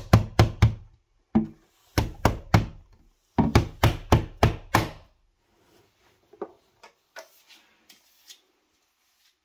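Ordinary steel claw hammer tapping a UPVC window bead into the frame so it clicks into place, in quick groups of sharp knocks: about four, a single one, three, then six, over the first five seconds. A few faint clicks follow.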